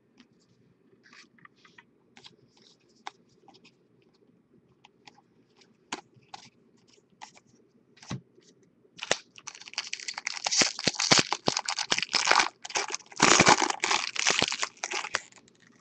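A few faint, scattered taps, then, about nine seconds in, a 2015 Bowman Jumbo foil card-pack wrapper being torn open and crinkled for several seconds.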